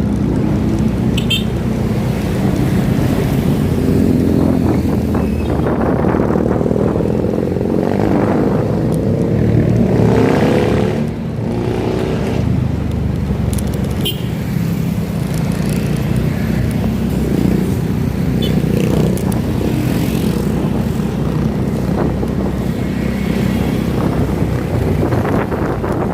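Engine running steadily, heard from on board, with a brief rise in pitch about ten seconds in.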